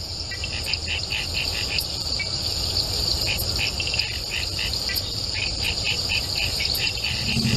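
Insect ambience, like crickets: a steady high trill with short chirps repeating several times a second, over a low rumble, slowly growing louder.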